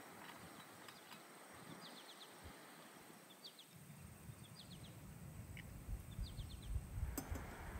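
Quiet outdoor ambience: a small bird chirping in quick runs of three or four high notes, repeated about every second, over a faint steady high whine. A low rumble comes in about halfway through, and there is one sharp tick near the end.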